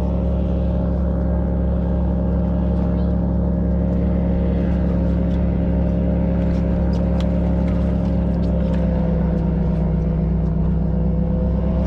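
Airboat engine idling steadily, its pitch sagging slightly and coming back up near the end.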